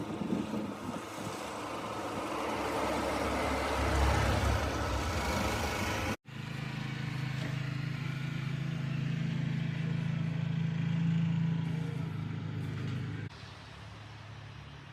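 An engine running steadily with a low hum, broken once by a sudden cut about six seconds in and dropping quieter near the end.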